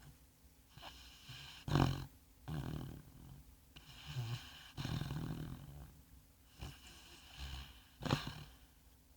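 Labrador retriever snoring in its sleep: long rumbling breaths every two to three seconds, with a sharp snort about two seconds in and another near the end.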